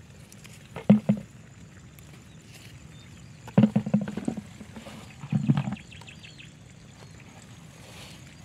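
An animal calling in three short, loud bouts: once about a second in, a longer run of quick calls around three and a half seconds in, and again about five seconds in.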